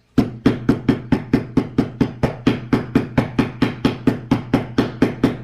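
A hammer striking a geode in rapid, evenly spaced blows, about five a second, to crack it open.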